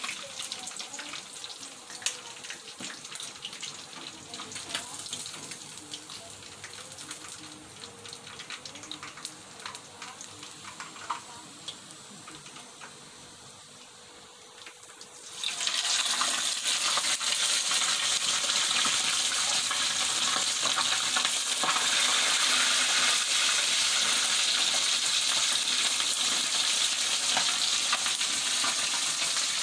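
Spice-braised (ungkep) chicken pieces deep-frying in a small pan of hot oil. A soft sizzle with scattered clicks of metal tongs, then about halfway through a sudden, much louder steady sizzle as more chicken goes into the oil.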